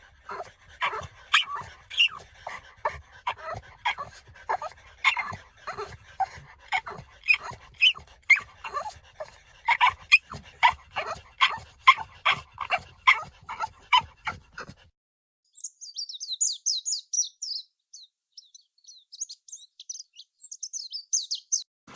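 French bulldog whining and yipping in a rapid run of short, squeaky, chirp-like calls, several a second. About fifteen seconds in the calls stop, and only thin high chirps are left.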